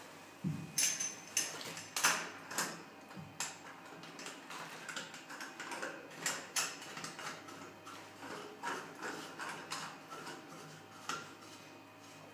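Chrome bath mixer and its metal wall connectors clicking and scraping together as the mixer is offered up and fitted: irregular small metallic clicks and taps, a few louder knocks in the first few seconds.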